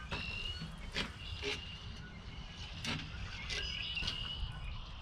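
Outdoor ambience: a high, thin chirping that comes and goes over a low wind rumble, broken by about five sharp clicks.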